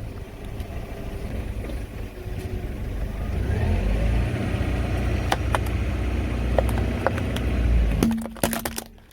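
Car engine running low as the car rolls slowly over objects, with scattered sharp cracks of things breaking under the tyres and a quick cluster of cracks near the end.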